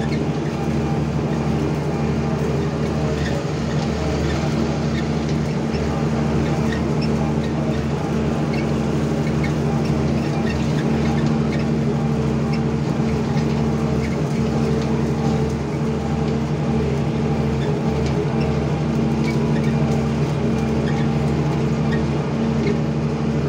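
Hira 985 combine harvester running steadily as it is driven, a constant engine drone heard from the open operator's seat, with faint rattles from the machine.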